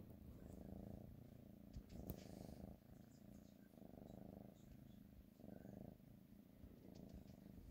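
Kitten purring close up, faint, swelling and fading about every second and a half. A brief click about two seconds in.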